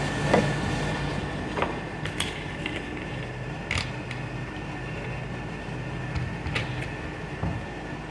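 A steady machine hum with a few sharp metallic clicks and knocks scattered through it.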